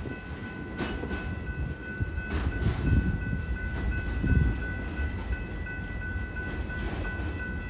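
Loaded tank cars of a freight unit train rolling past, wheels knocking over rail joints every second or two over a steady rumble. A steady high whine of several tones runs over it.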